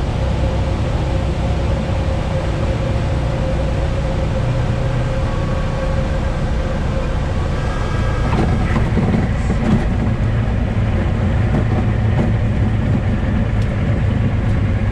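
Cessna 172 engine running steadily at low power, heard in the cabin during the flare and landing. About eight seconds in, a few knocks as the wheels touch down, then the rumble of the tyres rolling on the runway.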